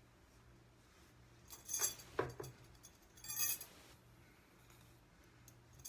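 A few short rustling handling sounds, from hands working through long hair, about one and a half, two and three and a half seconds in, over a faint steady hum.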